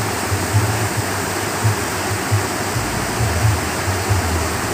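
Steady rush of flowing water at a canal sluice gate, with uneven low rumbling underneath.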